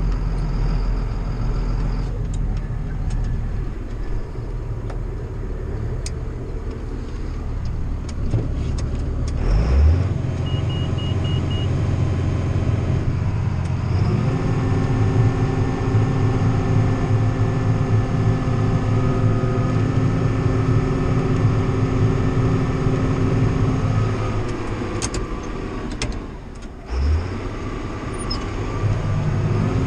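John Deere 7800 tractor's six-cylinder diesel engine running steadily under load, heard from inside the cab, while the grain cart unloads corn into a dump truck. The engine note firms up and holds higher about halfway in and sags briefly near the end. A quick run of four faint beeps sounds about a third of the way in.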